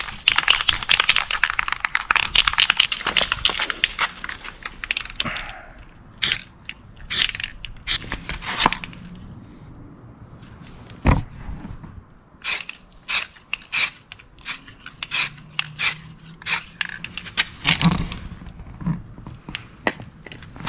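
An aerosol spray-paint can being shaken, its mixing ball rattling fast and densely for about five seconds, then the can spraying paint onto the sanded wheel rim in many short bursts, with a single knock about halfway.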